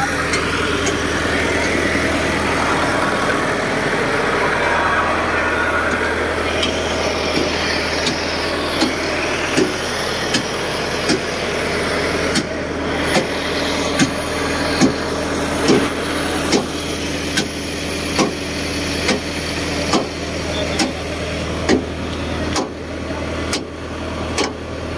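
Tractor diesel engines running steadily while pulling on chains. From about halfway through, a sharp knock repeats roughly once a second.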